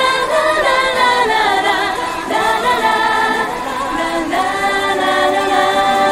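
Choir of layered voices singing a choral passage in a symphonic-rock song. The voices waver at first, then settle into long held chords about four seconds in.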